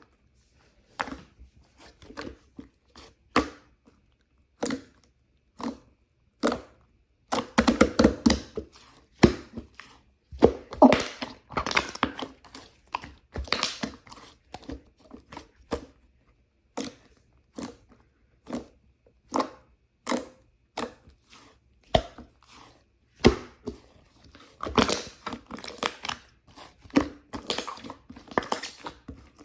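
Close-miked eating: irregular crisp crunches and clicks of someone biting and chewing crunchy food, with denser runs of chewing a few times.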